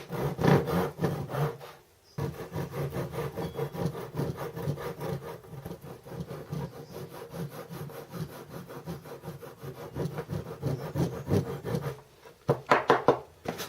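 Hand saw cutting through a timber plug in a wooden pattern, trimming it flush, in quick, even back-and-forth strokes. The sawing stops about twelve seconds in, and a few more strokes follow near the end.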